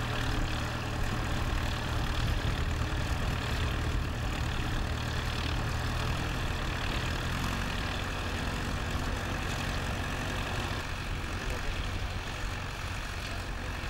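Vintage Fordson tractor engine running steadily under load as it pulls a mounted plough through the soil; its low note shifts a little about halfway through.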